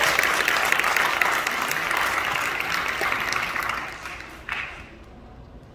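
Audience applauding, the clapping dying away about four seconds in to quiet room tone.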